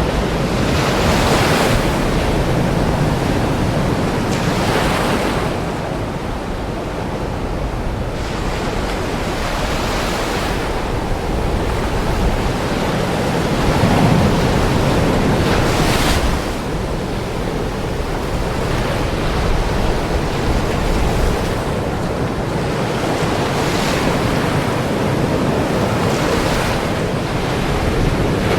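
Ocean waves breaking and washing on a shore, each swell rising and falling every few seconds over a constant rush of surf, with wind on the microphone.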